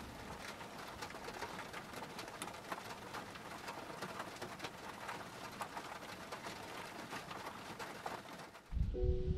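Steady rain falling, a dense patter of single drops ticking over an even hiss; it cuts off near the end.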